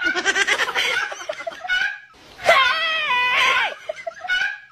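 Human voices: rapid laughing in quick pulses, then a long high-pitched scream about two and a half seconds in that holds its pitch and drops at the end.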